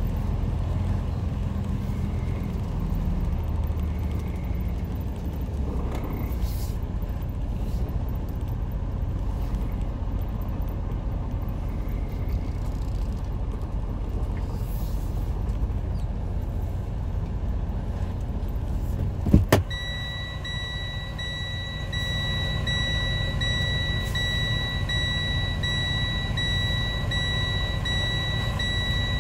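Semi truck's diesel engine running at low speed, a steady low rumble heard from inside the cab. About two-thirds of the way through there is a click, then a steady high electronic warning tone starts and keeps going, with short breaks about once a second.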